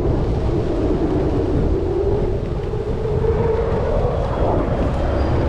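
F-35 Lightning II's single F135 turbofan jet engine, a loud deep rumble with a tone that rises slowly in pitch over the middle few seconds and then fades into the rumble.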